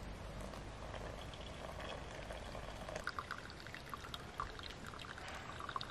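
Water poured from a small metal kettle into a paper-filter pour-over coffee dripper, a steady pour lasting about three seconds, followed by light dripping.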